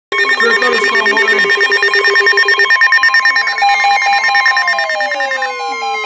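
Several NOAA weather alert radios going off together for a severe thunderstorm warning: overlapping electronic alarm beeps and steady warning tones, pulsing at different rates. About halfway through, one tone slides slowly downward in pitch.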